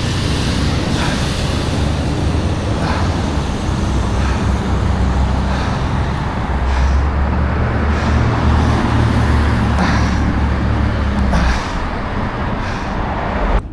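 Road traffic noise: a steady rumble of vehicles passing on pavement, louder from about six to eleven seconds in, with faint short scrapes recurring about every second and a half.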